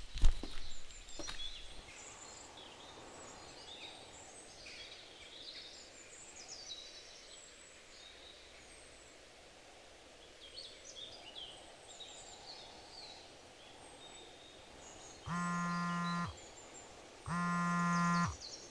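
Quiet outdoor ambience with birds chirping. Near the end, two steady low buzzing tones of about a second each, a second apart, which are the loudest sounds.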